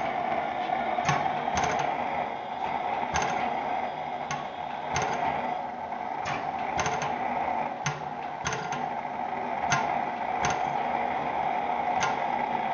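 Antique Blaisdell engine-compressor running, firing hit-and-miss fashion: about a dozen sharp cracks at uneven intervals, half a second to two seconds apart, over a steady mechanical clatter.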